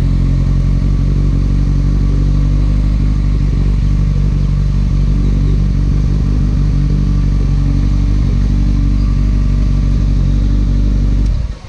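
Kawasaki Ninja ZX-6R inline-four engine with an Akrapovič exhaust idling steadily, then switched off suddenly just before the end.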